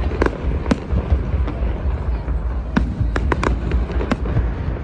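Fireworks going off: about six sharp bangs and pops, four of them bunched together in the second half, over a steady low rumble.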